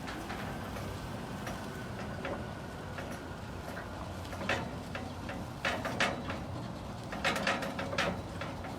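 Sharp metallic clicks and rattles, sparse at first and then coming in clusters from about halfway through, over a steady low rumble.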